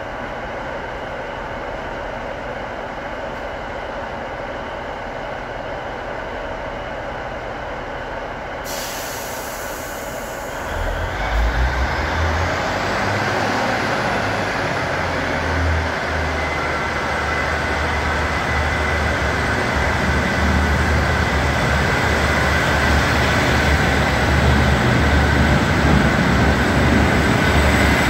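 Class 156 diesel multiple unit's Cummins engines idling in an underground station. A hiss of air brakes releasing starts about nine seconds in. From about eleven seconds the engines open up and the train pulls away, growing steadily louder.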